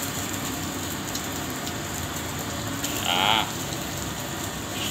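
Egg frying in hot oil in a wok, a steady sizzling hiss. A brief voice cuts in about three seconds in.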